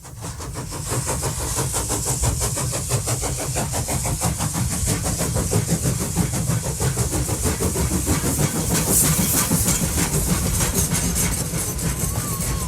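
A train running steadily, with a low rumble, a fast even beat and a hiss on top, fading up from silence at the start.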